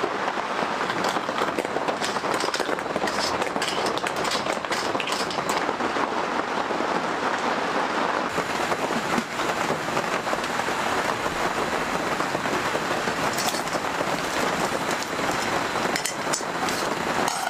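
Steady heavy rain falling, with scattered sharper drip ticks over the continuous hiss.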